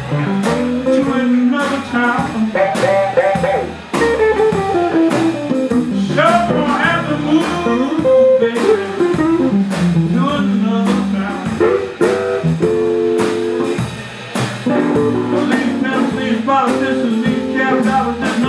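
Live electric blues band playing a steady groove: drum kit keeping an even beat, upright bass walking underneath, and a washboard-bodied electric guitar, with a bending lead melody line over the top.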